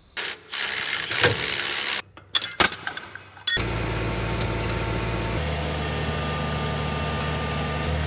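A loud rushing noise for about two seconds, then a few sharp metallic knocks, and from about three and a half seconds in the SEM 652D wheel loader's diesel engine runs steadily, its tone shifting slightly about two seconds later.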